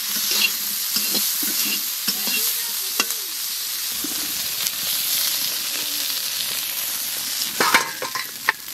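Dry fish sizzling in hot oil in a wok, with a spatula scraping and knocking against the pan. Near the end there are several clatters as the fried fish are tipped out of the wok into a steel bowl.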